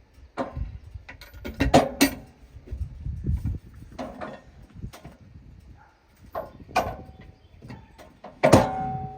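A birch log being turned over on a sawmill bed: a run of irregular knocks and bangs of wood against the mill's steel, with the loudest bang near the end followed by a short steady whine.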